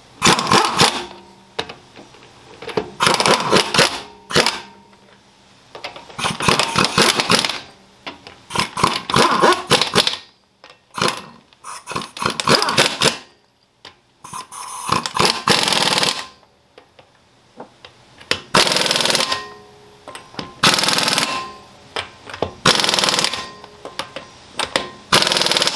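Pneumatic impact wrench hammering in about ten short bursts of a second or two each, with a fast rattle, as it runs down and tightens a wheel's lug nuts.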